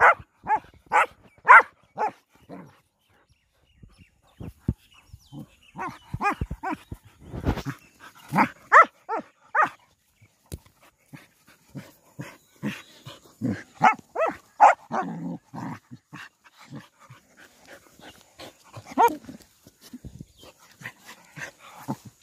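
Dogs barking in short clustered bursts while play-fighting, a Saint Bernard wrestling with a local dog.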